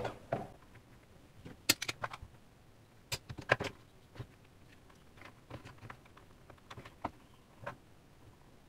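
Scattered light clicks and small rattles of hands handling a circuit board, its connecting wires and a plastic enclosure on a workbench, with the loudest taps about two and three and a half seconds in.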